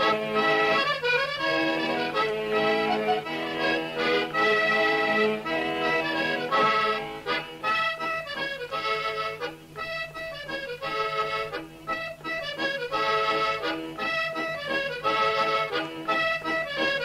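Accordion playing a traditional Sardinian dance tune, quick changing melody notes over a steady held bass note.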